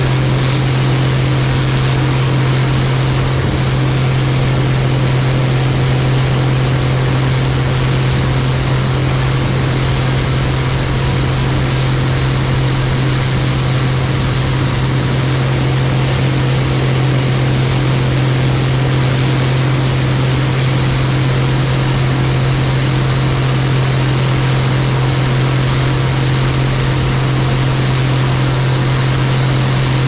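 Steady, even hum of a camera drone's propellers hovering and flying, holding one low pitch throughout with no change in speed.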